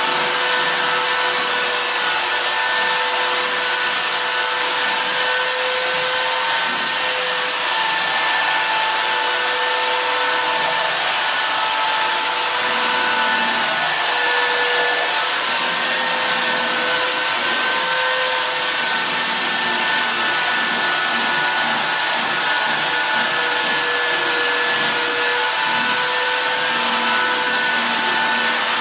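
Handheld electric sander running steadily on a wooden plank floor: a motor whine over the rasp of the pad on the boards, its pitch wavering slightly.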